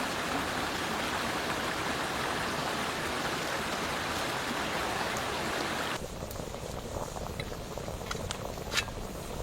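Steady rush of a flowing stream; about six seconds in it cuts to quieter bubbling of a pot on the boil, with scattered pops and crackles.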